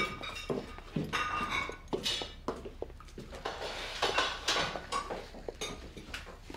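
Dishes and cutlery clinking and clattering in irregular knocks and chinks, some ringing briefly.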